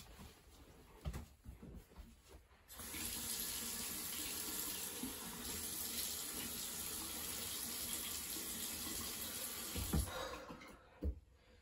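Bathroom sink tap running, water pouring steadily into the basin; it comes on about a quarter of the way in and is shut off a couple of seconds before the end.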